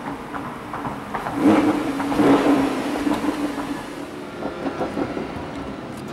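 Lamborghini Huracán's 5.2-litre V10 heard from inside the cabin while driving slowly, with two short blips of throttle about a second and a half and two seconds in, then settling to a quieter run with a few light clicks.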